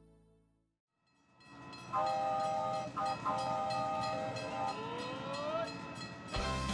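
Train sound effect: a chord-toned train horn sounds in two long blasts over a steady rhythmic clatter of wheels on rails, followed by a short rising whistle. Music starts near the end.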